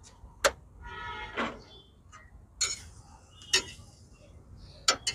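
A steel spatula and a metal box grater clicking and knocking against a flat steel griddle, about five sharp separate strikes, as an omelette is worked on the griddle.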